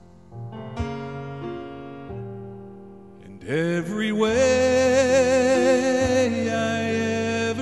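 Piano chords, then about three and a half seconds in a man starts singing into a microphone over the piano, holding long notes with vibrato.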